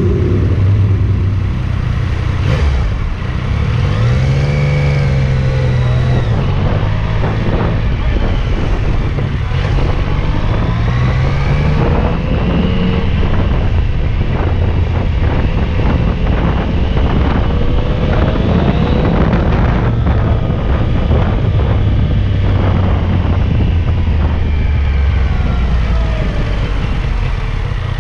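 Motorcycle engine running in stop-and-go traffic over a steady low rumble, its pitch rising and falling several times as the rider pulls away and eases off.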